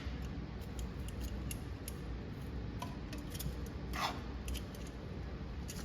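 Chicken frying in a pan with butter and marinade, sizzling with scattered crackles and pops; one louder pop about four seconds in.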